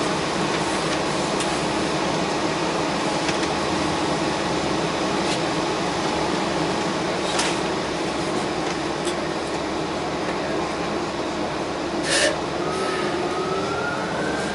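Steady drone inside a New Flyer XD60 articulated bus cabin, its engine and air conditioning running with a held low hum and a few light clicks. Near the end a siren outside starts to rise faintly.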